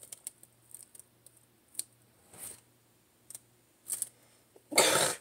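Small clicks and scratches of fingernails picking at dried glue clogging the plastic spout of a gallon glue jug, then a brief much louder burst of noise near the end.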